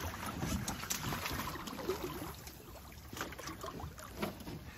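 Water swishing and lapping at the side of a boat while a chum salmon is held in the current and released by hand, with scattered small knocks of handling against the boat.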